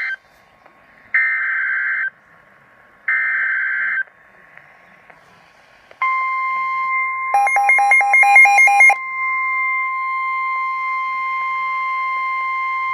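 Emergency Alert System SAME header on NOAA Weather Radio: harsh digital data bursts about a second long, the end of one and then two more, a second apart. About six seconds in the steady 1050 Hz warning alert tone starts and holds, announcing a new warning. Around seven seconds in, a rapid beeping pattern sounds over the tone for about a second and a half.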